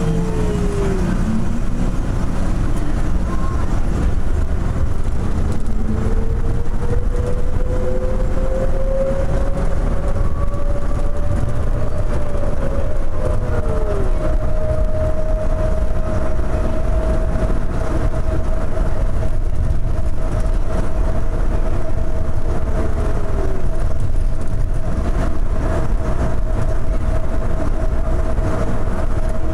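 Rubber-tyred automated airport people-mover train running at speed through its tunnel, heard from inside the car: a steady low rumble with a whine that climbs in pitch and then holds steady, and a few short falling whines.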